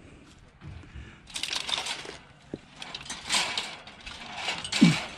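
Aluminum cans being handled: crinkling and clattering in a few short bursts.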